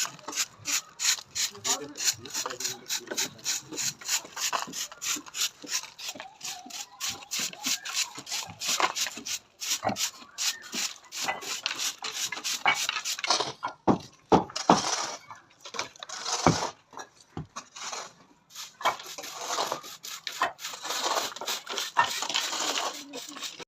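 A hand tool working a hard surface in fast, even rasping strokes, about four a second, with a few separate sharp knocks around the middle and more dense scraping near the end.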